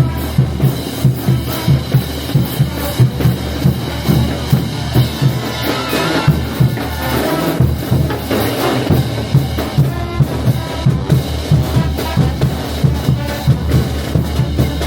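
Brass band playing: bass drum and snare keep a steady marching beat of about three strokes a second, with brass lines rising over the drums in the middle.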